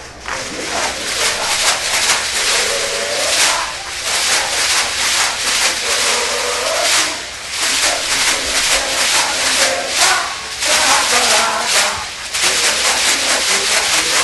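Many caxirolas, plastic hand shakers, shaken together in rhythm: a dense, steady rattling, easing off briefly about seven and twelve seconds in. Crowd voices are underneath.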